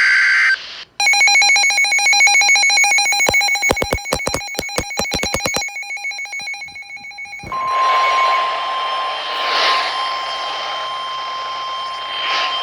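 Weather radio alert sequence: a brief buzzing SAME data burst ends, then an electronic alarm pulses rapidly for about four seconds. After a short pause, a single long steady warning tone sounds over radio static.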